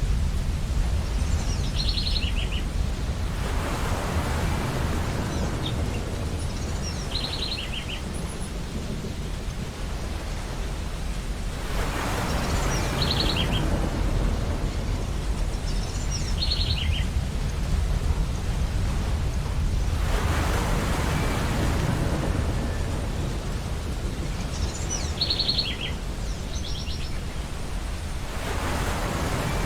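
Ocean waves breaking and washing up a beach, a swell about every eight seconds over a steady low rumble of surf. A bird calls in short, high chirping bursts between the swells, several times.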